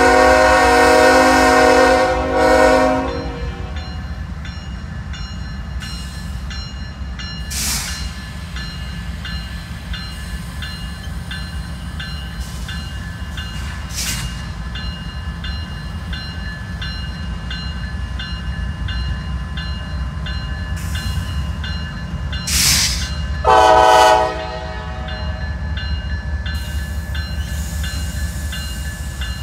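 Diesel freight locomotive's multi-chime air horn sounding a long blast that cuts off about three seconds in, then one short blast later on, over the steady low rumble of the slow-moving locomotives. A grade-crossing bell dings evenly in the background.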